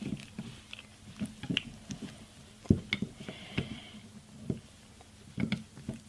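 Small flat-blade screwdriver clicking and scraping against a plastic water softener injector block as the injector throat is unscrewed: scattered light clicks and taps, the sharpest about two and a half seconds in.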